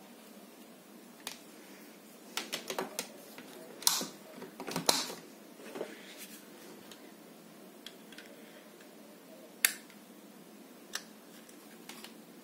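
Small plastic DVB-T2 set-top box and its power cable being handled: scattered clicks and light knocks. The sharpest come about four and five seconds in, with another single sharp click near ten seconds.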